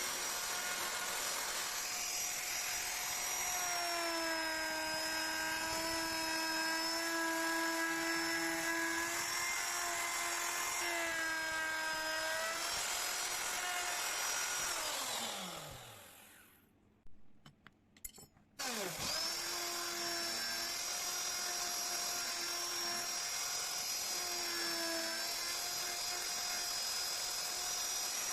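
Electric wood router running at high speed, its whine sagging in pitch now and then as the bit cuts into the wood. About halfway it is switched off and spins down with a falling whine, goes nearly silent for a couple of seconds apart from a few clicks, then is switched back on, whines up quickly and keeps cutting.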